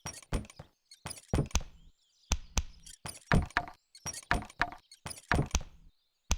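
A steady rhythmic beat of knocks and clicks made with an ankle brace, in short clusters that recur about once a second.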